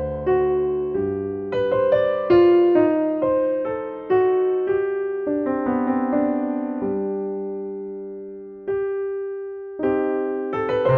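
Background piano music, a slow allemande: single notes and chords struck and left to fade, with one long held note about seven seconds in before new notes enter.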